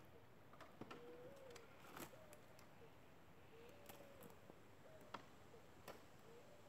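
Near-silent rural quiet with a dove cooing faintly: a few soft, low hoots every second or two. A few faint sharp clicks come through, the loudest about two seconds and five seconds in.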